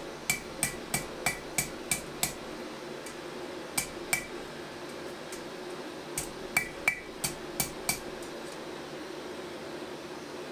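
Hand hammer striking a steel drawknife blank on an anvil, each blow with a short metallic ring. The blows come in three runs: about seven at roughly three a second, then two, then five.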